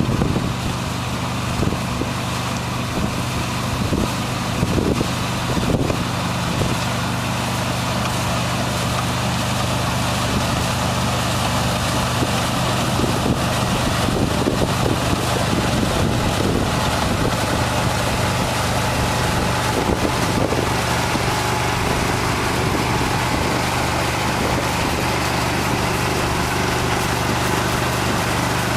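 A farm machine's engine running steadily, with a few knocks in the first six seconds.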